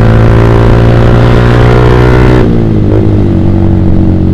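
Yamaha Vixion's 150 cc single-cylinder four-stroke engine through a Proliner TR1 short aftermarket exhaust, held at high revs under throttle while riding. About two and a half seconds in the throttle is closed and the revs fall away to a lower steady note.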